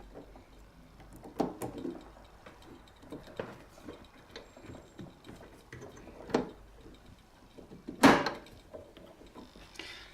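Scattered knocks and clicks of metal parts being handled as a wheel is fitted back onto a band bag sealer, with one sharper knock about eight seconds in.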